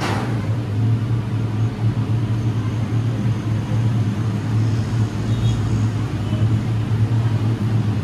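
Steady low mechanical drone of commercial kitchen equipment, with a short sharp knock at the start.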